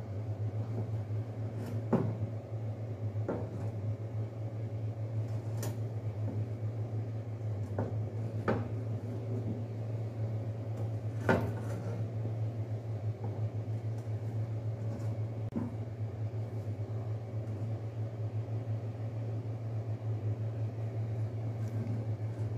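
Iron tawa, held upside down over a gas-burner flame to roast a naan, knocking and scraping now and then against the stove's metal grate as it is tilted and turned: about seven separate sharp clinks. A steady low hum runs underneath.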